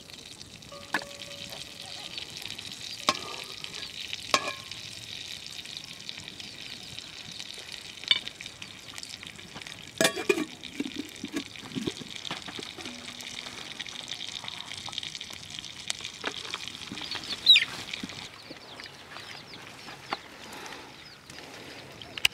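Fat sizzling in a wok over a wood fire, a steady hiss with scattered clicks and knocks. The hiss fades out a few seconds before the end.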